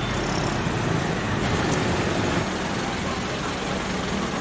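Steady low rumble of road traffic and an idling tour bus.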